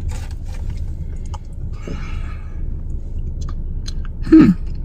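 A person chewing a mouthful of banana-split ice cream sundae, with small wet mouth clicks over a steady low hum. Near the end there is one short 'mmm' falling in pitch.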